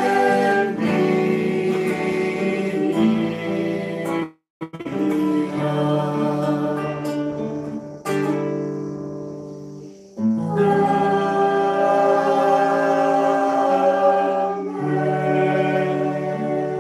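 A hymn sung by voices with acoustic guitar accompaniment, in long held notes. The sound cuts out completely for a moment about four seconds in.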